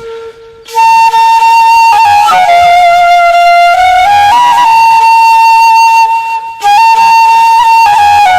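Background music: a flute-like wind melody of long held notes stepping between a few pitches, with a brief break at the start and another about six seconds in.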